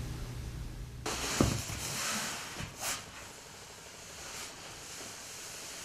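Handling sounds from hands working on a table: a sharp click about a second and a half in, with rustling and a brief scrape near three seconds, then quieter faint rubbing.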